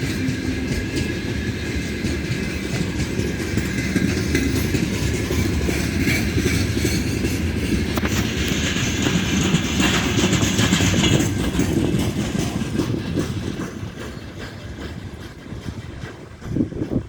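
Freight train wagons rolling past, wheels clattering over the rail joints in a steady run of clicks; the sound fades away over the last few seconds as the train recedes.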